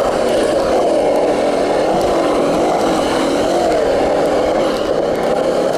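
Skateboard wheels rolling fast on smooth skatepark concrete, heard close to the board: a loud, steady rolling noise with a hum that wavers slightly up and down in pitch.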